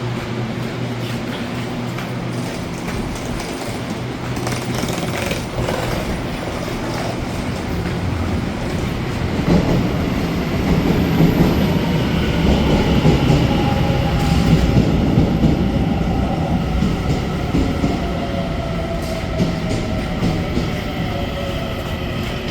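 Taiwan Railways EMU800 electric multiple unit running past at a station: a steady rail rumble that swells about halfway through, with a few wheel clicks. From about halfway, an electric motor whine of several tones slowly falls in pitch.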